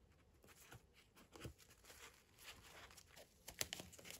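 Faint handling noises: scattered small clicks and rustles, a little louder in the last second.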